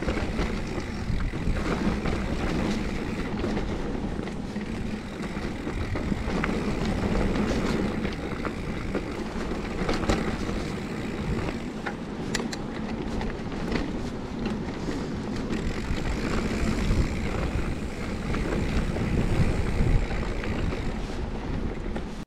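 A mountain bike being ridden along a forest trail: tyres rolling over dirt and stones, wind buffeting the microphone, and scattered rattles and clicks from the bike. It cuts off suddenly at the end.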